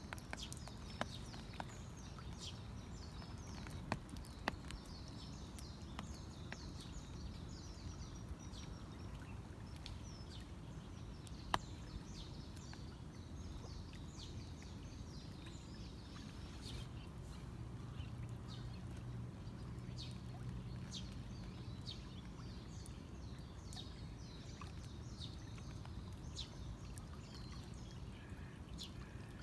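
Outdoor ambience in rain: a steady soft wash of noise with small birds chirping continuously, and a few sharp ticks, the loudest about a third of the way in. A faint low hum rises and fades in the middle.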